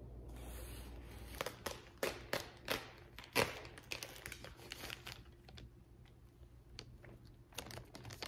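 Crinkling of a paper wrapping sleeve and a plastic bag as they are handled and pulled off a potted plant. The sharp crackles come in a dense run in the first half, thin out, then pick up again near the end.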